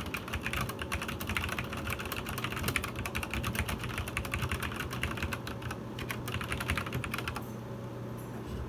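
Rapid typing on a Cherry G80-11900 mechanical keyboard with Cherry MX Black linear switches and POM keycaps: a dense run of key clacks that stops about seven seconds in.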